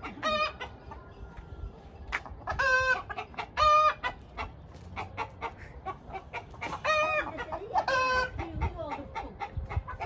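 Chickens clucking, with about five short, loud calls at irregular intervals and small clicks in between.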